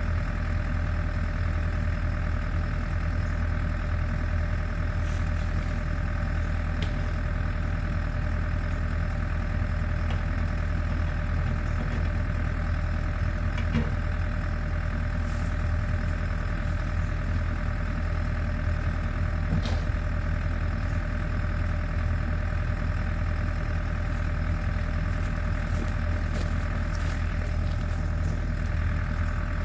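Champion portable generator's engine running steadily at a constant speed, a low hum with an unchanging pitch.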